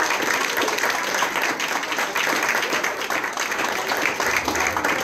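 Small audience applauding, with hand claps close by mixed into a steady patter of clapping.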